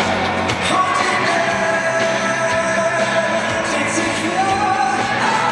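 Loud pop-rock song with a singer holding long, sustained notes over a full band backing.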